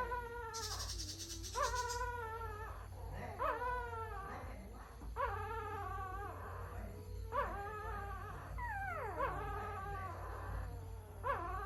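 A puppy crying: a string of drawn-out, high whining cries, each about a second long, that rise sharply at the start and then hold or sag, repeating every one and a half to two seconds. One cry near the end glides steeply downward. A steady low hum runs underneath.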